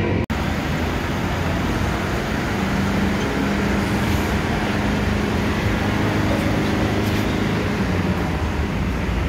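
Toyota Hilux pickup's engine running steadily during its emission test, blended with the steady din of a busy vehicle-testing bay.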